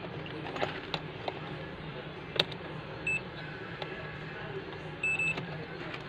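DT830D digital multimeter's continuity buzzer beeping twice as the test probes touch the board, a short beep about three seconds in and a longer one of about a third of a second near the five-second mark: the beep signals a continuous path between the probed points. A few sharp clicks, the loudest about two and a half seconds in, over a steady low hum.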